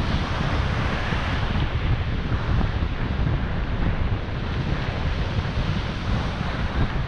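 Ocean surf breaking steadily on a sandy beach, with wind gusting across the microphone in a low, uneven rumble.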